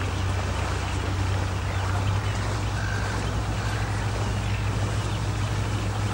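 Tour ship's engine giving a low, steady hum as the ship manoeuvres close in, over a steady hiss of wind and water.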